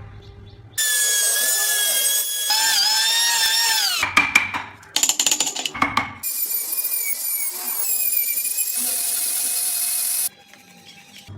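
High-speed power carving tool whining as it cuts wood, its pitch sagging and wavering as the bit bites. It stops briefly twice midway, restarts, and cuts off suddenly near the end.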